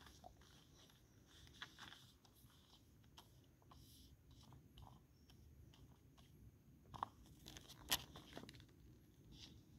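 Faint crackling and soft taps of a paper poster being pressed and smoothed by hand onto a pole, with a couple of sharper clicks near the end.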